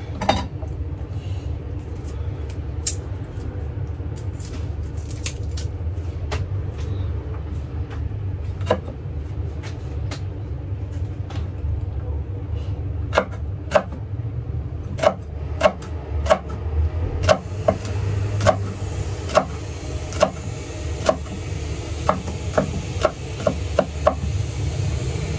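Kitchen knife chopping vegetables on a cutting board: sharp knocks, a few irregular ones at first, then quicker and more regular from about halfway. A steady low hum runs underneath.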